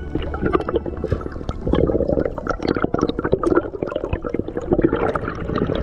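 Water bubbling and crackling around an underwater camera as a freediver rises toward the surface: a dense run of small pops and gurgles that gets somewhat louder near the end.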